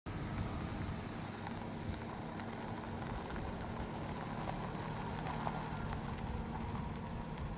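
A car running at low speed: a steady low engine hum under a broad hiss of outdoor noise.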